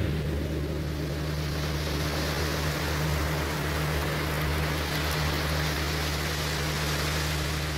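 Electronic soundtrack music: a steady low drone of held tones under a wide wash of hiss that swells in over the first few seconds and then holds.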